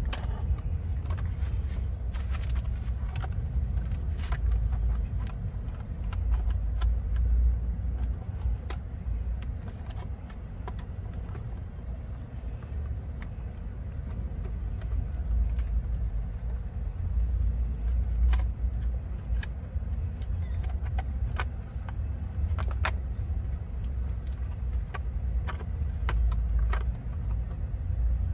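Scattered clicks and light plastic rattles of a toy RC monster truck being handled, over a steady low rumble.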